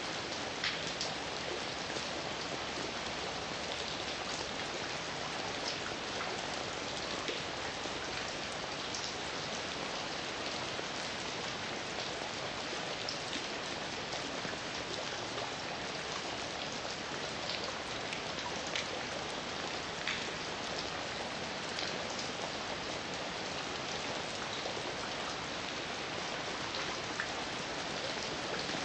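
Steady heavy rain falling, a dense even hiss with scattered sharper drops striking a surface.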